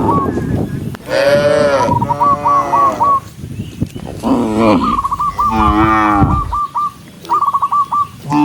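A herd of cattle mooing: several loud moos follow one another with short gaps, some of them overlapping.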